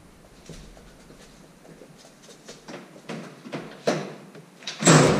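Scattered light footsteps and knocks, becoming more frequent, then one louder clatter near the end.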